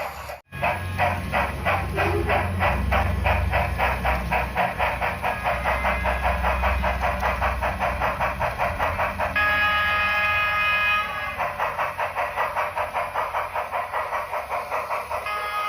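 Sound effects of a Union Pacific Big Boy model steam locomotive: rapid, even exhaust chuffs, about five a second. A multi-note whistle blows for about two seconds partway through and starts again near the end.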